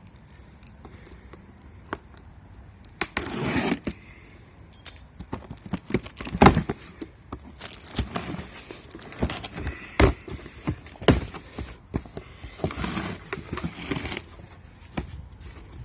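Pressure-washer box being opened and its parts handled: irregular rustling and scraping of cardboard and plastic packaging with scattered sharp knocks and clicks, the loudest about six seconds in.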